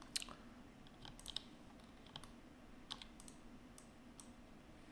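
Faint, scattered clicks of a computer keyboard and mouse, about a dozen, some in quick clusters, over a faint steady hum.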